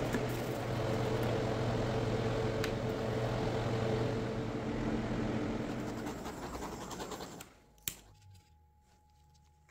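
A motor-driven machine running steadily with a hum and a hiss, stopping about seven and a half seconds in, followed by a single click.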